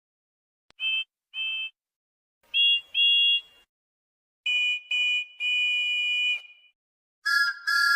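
Several different train whistles sounded one after another, each a two-note chord with a hiss underneath, blown in short toots. There are two toots about a second in, two more near three seconds, then short-short-long around five seconds. A lower-pitched whistle starts near the end.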